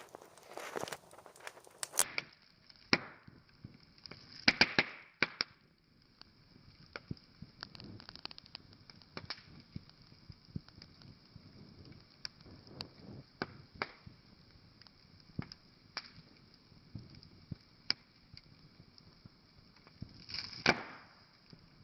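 Wood fire crackling, with irregular sharp pops and snaps over a faint hiss and a few louder bursts of popping.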